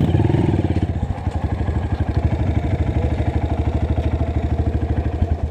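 Honda CRF 230F trail bike's single-cylinder four-stroke engine idling close by, an even, rapid beat that stops abruptly near the end.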